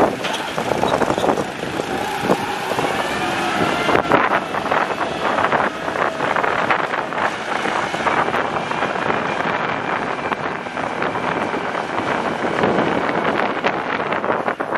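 Massey Ferguson 385 tractor's diesel engine running under the load of an overloaded sugarcane trolley, mixed with wind buffeting the microphone.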